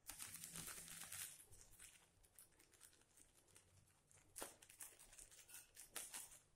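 Faint crinkling of a clear plastic bag full of dry liquid-wallpaper mix as a hand presses and rubs it. A dense crackle runs for about the first second and a half, then scattered crinkles and a few sharper clicks.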